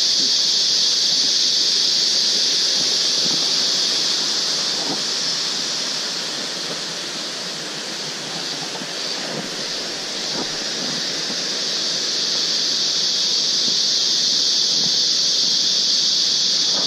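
Loud, steady high-pitched drone of forest insects, unbroken, with faint footsteps of hikers walking on the dirt trail beneath it.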